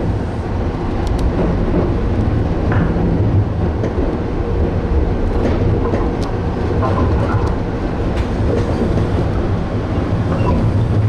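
Electric train running, heard from inside the driver's cab: a steady hum of motors and wheels on rail, with a few sharp clicks scattered through it.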